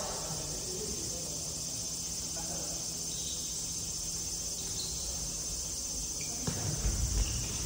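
Steady high-pitched insect drone filling the sports hall, over a low rumble of play on the wooden court that grows into heavier thuds near the end.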